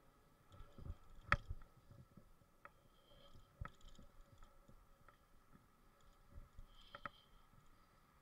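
Faint scattered clicks and knocks from a bicycle and its handlebar-mounted camera rattling while riding over the pavement. The loudest knock comes about a second and a half in, over a faint steady hum.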